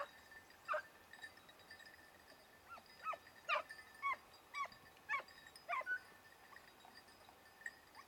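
Hunting hounds out of sight in the scrub yelping: about ten short, high cries, each falling in pitch, coming in quick runs over the first six seconds. These are hounds giving tongue on a hare's scent.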